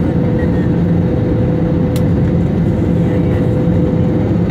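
Jet airliner cabin noise on approach to landing: the steady roar of the engines and rushing air with a steady droning tone, and a brief click about two seconds in.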